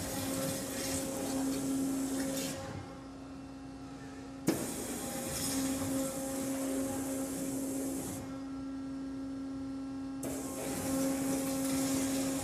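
Flow waterjet cutting head hissing as its jet cuts a gasket sheet, switching on and off in bursts: it cuts out about two and a half seconds in, comes back with a sudden pop about four and a half seconds in, stops again about eight seconds in and resumes about ten seconds in. A steady machine hum runs underneath.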